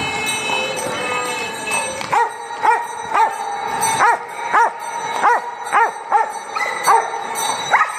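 Herding dog barking repeatedly in a road tunnel, short sharp barks at about two a second from about two seconds in.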